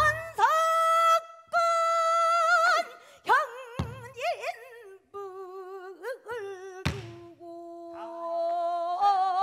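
Female pansori singer singing a lament in long, wavering held notes, accompanied by the buk barrel drum struck three times, about every three seconds.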